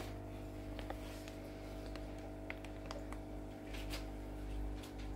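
Faint rustling and light clicks of plastic fish bags being handled, over a steady low electrical hum.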